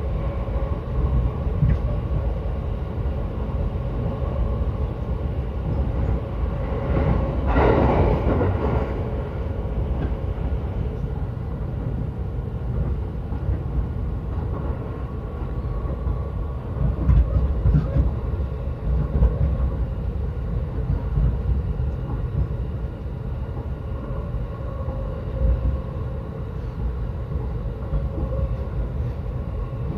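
Yokosuka Line electric commuter train running between stations, heard from inside the car: a steady low rumble of wheels on rail with a faint steady hum, and a brief louder rushing swell about eight seconds in.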